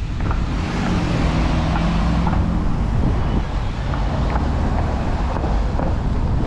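Wind buffeting the microphone on a moving electric scooter, over city street traffic noise. A steady low hum runs through the first few seconds.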